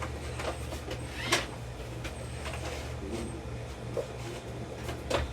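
iRobot Roomba 675 robot vacuum at its dock: a steady low hum with several sharp clicks and knocks spaced about a second apart.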